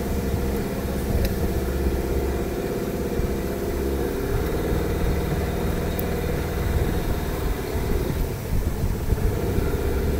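A boat's outboard motor running steadily at low speed, its pitch shifting slightly about four seconds in.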